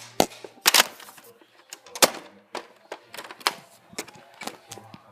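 Foam-dart blasters being fired and primed, heard as a quick, irregular run of sharp clicks and knocks, about a dozen in all, with the loudest near the start and about two seconds in.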